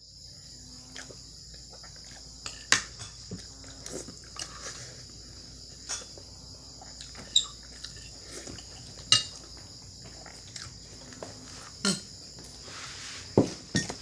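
Crickets chirring steadily in the background, with sharp clinks of a metal spoon against a plate about ten times during eating.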